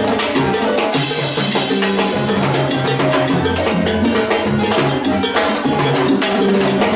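Live salsa band playing a fast, steady groove on timbales, congas and bass guitar, with a cymbal crash about a second in.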